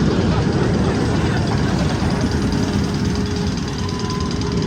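Magnum XL 200 roller coaster train rumbling steadily along its track. A faint steady hum joins about two seconds in.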